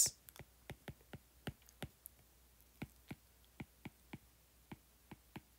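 Light, irregular clicks of a stylus tip tapping on a tablet's glass screen during handwriting, a few clicks a second.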